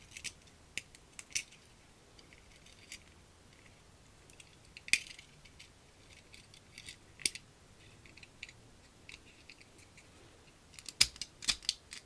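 Small sharp metallic clicks and taps from a Zippo butane lighter insert being handled, scattered and a few seconds apart, then a quick run of clicks near the end as its flint wheel is worked to throw a spark.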